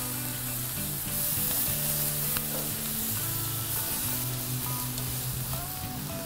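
Marinated thin-cut beef short ribs sizzling steadily on the grates of a very hot gas grill, their sugary marinade caramelizing. Soft background music with low held notes plays underneath.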